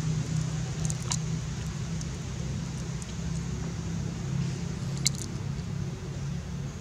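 A steady low mechanical hum, like an engine running, with a couple of brief sharp clicks about a second in and about five seconds in.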